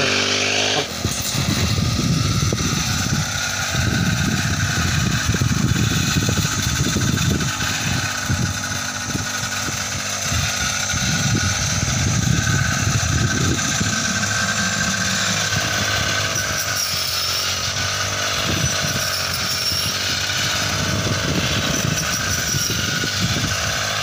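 Small petrol engine of a handheld brush-cutter-style paddy reaper running steadily just after being pull-started, its pitch shifting a little at times.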